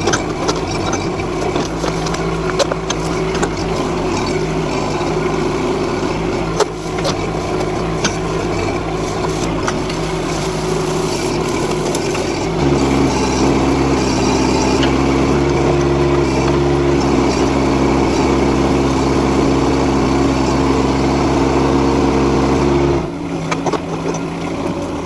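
NT18K mini excavator's diesel engine running steadily, with scattered clanks in the first half. About twelve seconds in the engine note steps up, louder and stronger, holds for about ten seconds, then drops back near the end.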